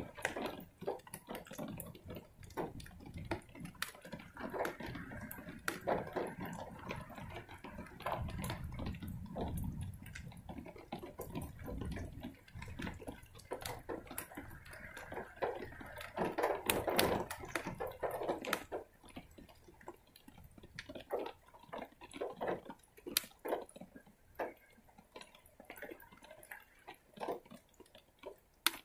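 Rain dripping and splashing in an uneven patter of sharp ticks. A low rumble swells and fades about a third of the way through.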